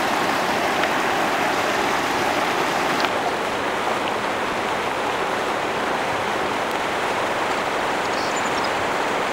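River water rushing and splashing over rocks at a small waterfall, a steady hiss. About three seconds in, the sound becomes slightly duller and continues as steady rushing.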